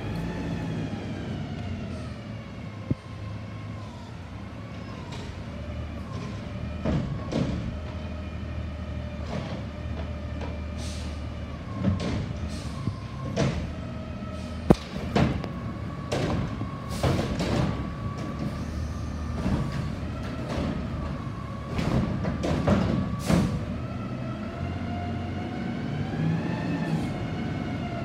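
Front-load garbage truck with a Curotto-Can automated cart arm: the diesel engine runs steadily under a hydraulic whine that rises and falls in pitch, with repeated clanks and thuds as carts are handled and dumped, and one sharp bang about halfway through.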